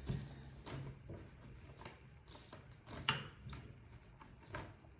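A few faint, separate clicks and rustles of small objects being handled, about a second apart, over a low steady hum.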